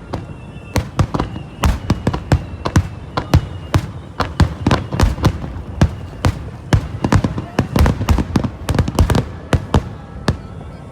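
Fireworks finale barrage: a rapid, continuous string of bursts and booms, several a second, over a low rumble.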